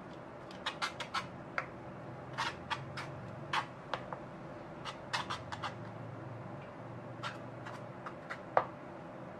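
Irregular light clicks and taps as a small plastic spatula works thick brownie batter in a metal baking tin, some coming in quick little runs, over a low steady hum.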